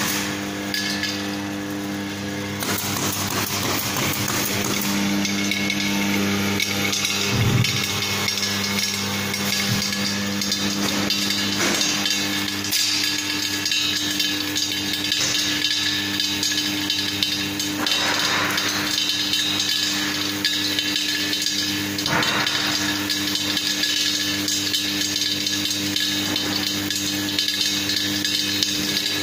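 Electric screw oil press running while it presses peanuts: a steady motor and gearbox hum under a continuous rattling clatter of knocks and clicks from the machine. One louder thump comes about seven and a half seconds in.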